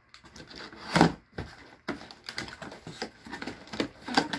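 A packaging box being ripped open by hand: one loud tear about a second in, then a run of irregular clicks and rustles as the packaging is pulled apart.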